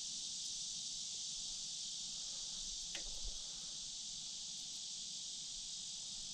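Steady high-pitched chorus of insects in the surrounding trees, with one faint tick about three seconds in.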